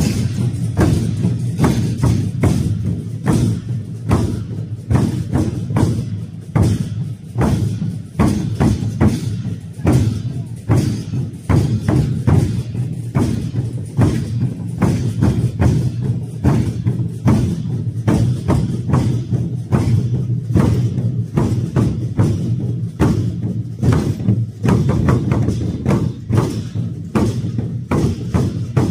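A troupe of large Chinese barrel drums beaten together with wooden sticks in a steady, driving rhythm, with cymbal clashes over the deep drum strokes.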